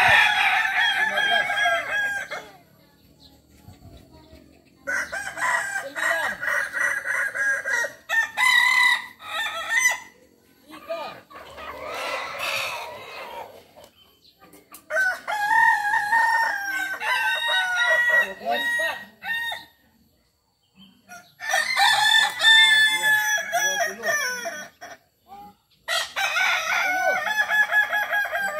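Kukuak balenggek roosters, a native West Sumatran breed known for its multi-tiered crow, crowing one after another. About six long crows, each broken into several stepped tiers, with short pauses between them.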